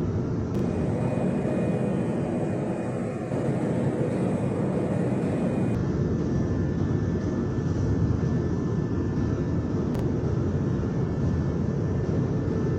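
Aircraft engines running, a steady noise heaviest in the low range, with a brief change in its character about half a second in and again near six seconds.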